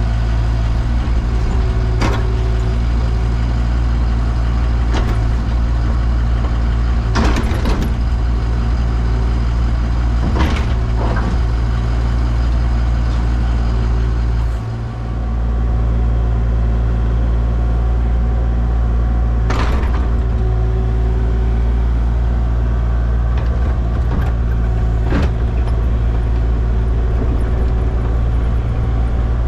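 Heavy engine running steadily with a deep drone, with half a dozen sharp metallic knocks and clanks scattered through it.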